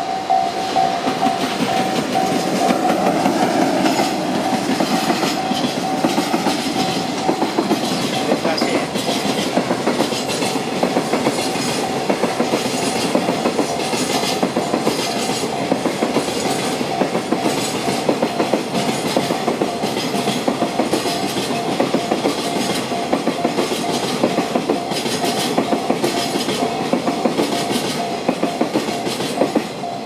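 A 21-car freight train, hauled by an EF66 electric locomotive, rolling past close by on a string of flat wagons: wheels clacking over the rail joints in a steady, repeating rhythm. A level-crossing warning bell rings throughout as a steady pulsing tone.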